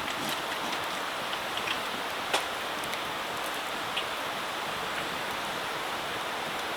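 Wood campfire burning: a steady hiss with a few scattered sharp crackles and pops.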